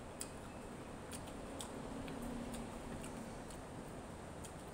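Close-up eating sounds: scattered wet mouth clicks and smacks from chewing grilled chicken by hand and licking fingers, with a brief low hum about two seconds in.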